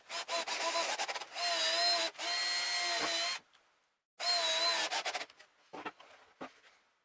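A power tool working wood in several short bursts, its motor whining with a slightly wavering pitch over scraping noise. Each burst starts and stops suddenly, and fainter scratching follows near the end.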